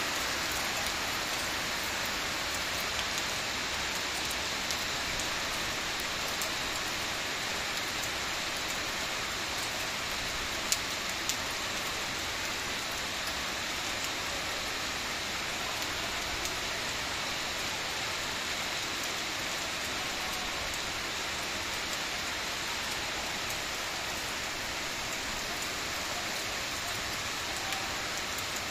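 Steady rain hissing down on roofs and a flooded yard, with occasional sharp ticks of drops, one louder than the rest about ten seconds in.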